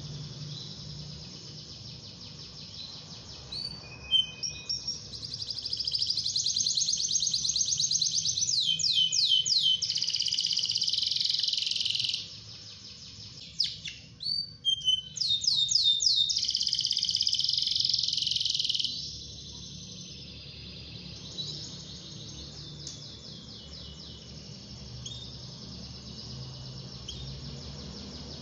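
Domestic canary singing in quick trills and twitters. The song swells into two loud, rapid rolling passages, one about five seconds in and one about fourteen seconds in, each several seconds long, with softer twittering between them and after.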